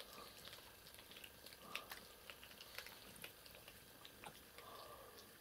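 Faint, irregular wet clicks and smacks of several cats chewing small raw fish from plates.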